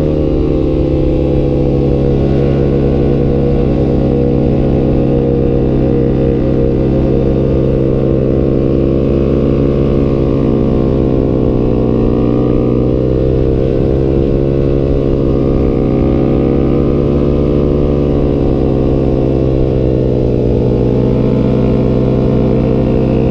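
Yamaha YZF-R15's single-cylinder engine running through a Tridente F21 full-system exhaust at cruising speed, its pitch rising and falling gently as the throttle is opened and eased.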